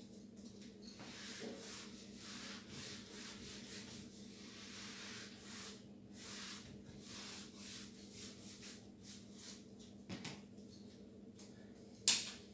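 A whiteboard being wiped clean with an eraser, in repeated rubbing strokes, over a low steady hum. There is one sharp click near the end.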